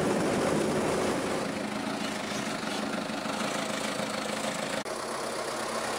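Truck engine running steadily as the truck drives along a rough dirt road, with road and rattle noise, heard from the side of the truck. The sound briefly cuts out just before the five-second mark, then the engine-like drone goes on.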